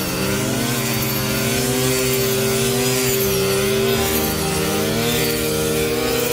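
Combine harvester running: a steady engine drone with a pitched whine that rises and falls about once a second.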